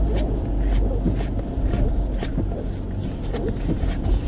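Steady low rumble of a car driving, heard inside the cabin, with irregular short scratches and taps as a small old Shih Tzu paws at the seat and door beside its bed.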